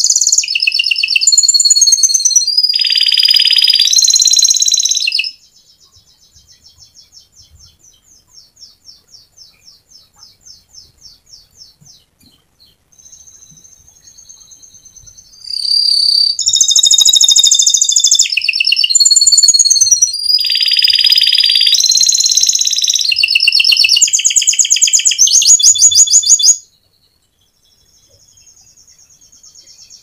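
Domestic canary singing: loud, high chirping phrases and rolling trills, falling to a quiet stretch of fast trilling after about five seconds, then loud song again for about ten seconds before it stops suddenly, leaving faint trilling.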